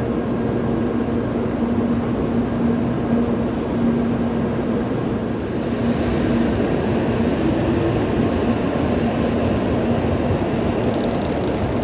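Steady rumble and hum of a Shinkansen train standing at a station platform, with a constant low drone underneath.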